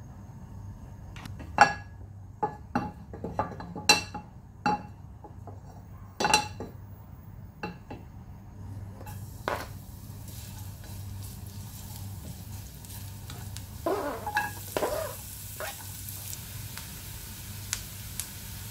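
Kitchen utensils clinking and knocking against a nonstick frying pan, then hot cooking oil starting to sizzle about halfway in as chopped garlic goes into the pan. The sizzling grows louder near the end as chopped onion is added, with the scrape of a wooden spatula stirring in the pan.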